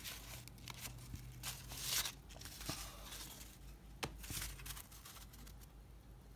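Cardboard trading cards being handled and laid down on a wooden tabletop: soft papery rustles and slides, strongest about two seconds in and again around four seconds in.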